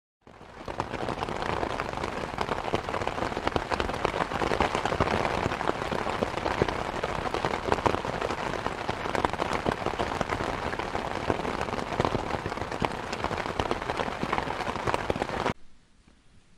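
Rain falling steadily, a dense hiss full of tiny drop clicks; it swells in at the start and cuts off abruptly near the end.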